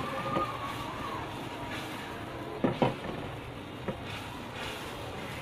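Spice-and-oil curry gravy sizzling steadily in a black karahi on a gas burner, with a couple of sharp clicks about two and a half seconds in and another near the four-second mark.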